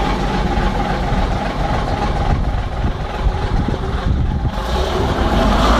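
Leyland Olympian double-decker bus's Gardner six-cylinder diesel engine idling with a steady low rumble; near the end it gets louder as the revs begin to climb.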